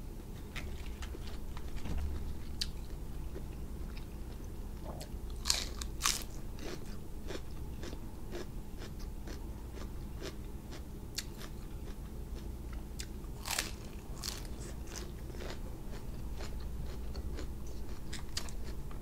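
Close-up chewing and crunching of crisp romaine lettuce and grilled cuttlefish, with irregular wet mouth clicks. A few louder crunches come about six seconds in and again past the middle.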